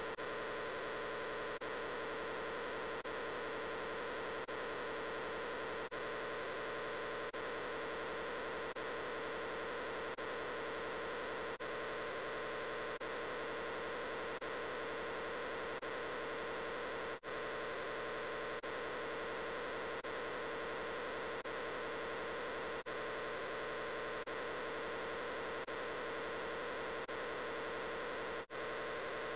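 Huge numbers of overlapping copies of the 'I'm Peppa Pig' voice clip blended into a steady, noisy drone with no words left to make out. It dips briefly about every second and a half as the clip loops.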